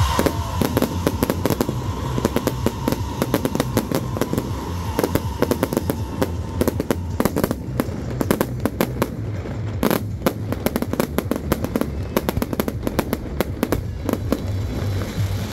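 Aerial fireworks display: a dense, continuous barrage of bangs and crackles from shells bursting overhead, with a sharper bang about ten seconds in. A thin whistle-like tone sinks slowly through the first half and fades out.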